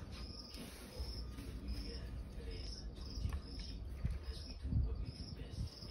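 A cricket chirping steadily, about two short high chirps a second, over a low rumble.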